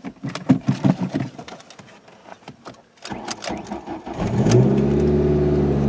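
A few light clicks. About 3 s in, the starter cranks for about a second, and then the 2003 Ford Focus ZX5's Zetec four-cylinder engine catches and settles into a steady idle. It is a cold start in snow.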